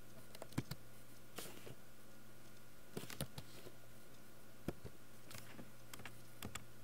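Computer keyboard keystrokes and mouse clicks, a handful of sharp single clicks spaced irregularly, over a low steady electrical hum.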